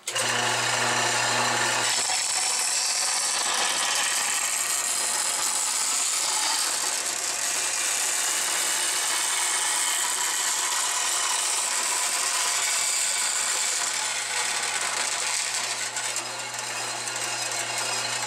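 Small vertical bandsaw with a 1/2-inch blade cutting a curve through a metal plate. The motor's steady hum is heard on its own for the first couple of seconds, then the blade's hiss in the cut takes over, and the hum stands out again near the end.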